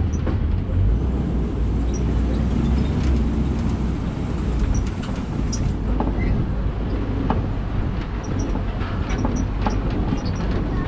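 Safari tour truck driving on a bumpy track: a steady low engine and road rumble, with scattered knocks and rattles, more of them in the second half.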